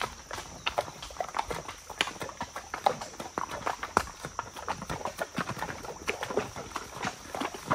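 A horse's hooves clopping on the stones of a shallow creek bed and splashing through the water, a quick, irregular run of knocks.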